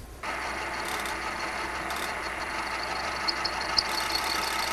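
Milling machine starting up and running steadily, with a hum made of several steady tones. A faint rapid ticking joins in from about three seconds in.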